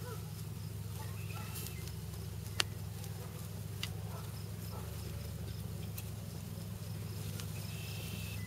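Chicken sizzling on a wire grill rack over an open fire, under a steady low hum, with a few sharp clicks; the loudest click comes about two and a half seconds in.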